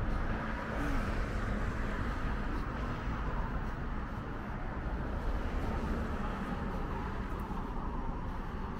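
Road traffic passing on a busy multi-lane city street: a steady mix of engine hum and tyre noise.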